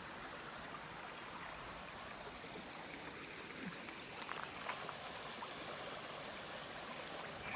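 Small stream running: a faint, steady rush of flowing water.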